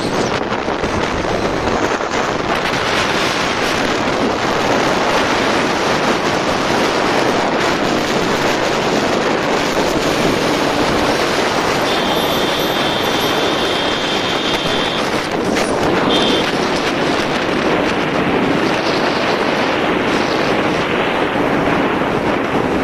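Steady rush of wind noise on the microphone of a Bajaj Pulsar 150 motorcycle at speed, accelerating to nearly 100 km/h. A high two-note tone sounds for about three seconds near the middle and again briefly a second later.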